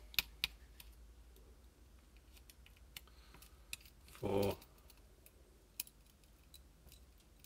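A few scattered light clicks and taps from a paintball marker's frame and small parts being handled, as the micro switch is taken out of the frame.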